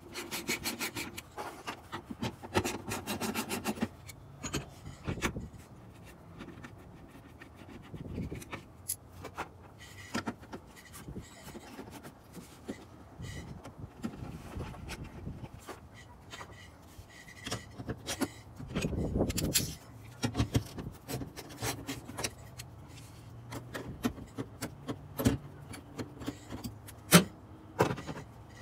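Hands working in a truck's engine bay: wires and plastic parts rubbing, clicking and rattling. There is a quick run of clicks in the first few seconds, a louder spell of rubbing and knocking past the middle, and one sharp click near the end.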